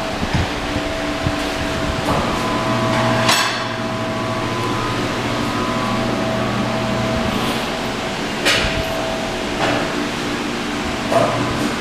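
Workshop background: a steady machinery hum with a few sharp knocks, the loudest about three seconds in.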